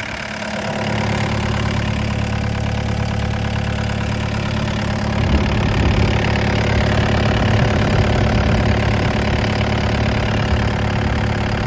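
Yanmar diesel engine of an IHI 65NX excavator running steadily, growing louder about a second in and again around five seconds in.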